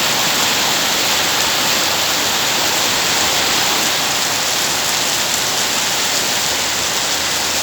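Steady heavy rain falling and pattering on surfaces, a continuous even hiss.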